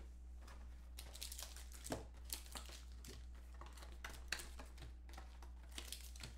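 Foil trading-card pack wrappers crinkling and tearing as packs are handled and opened by hand, in faint irregular crackles with a few sharper rips.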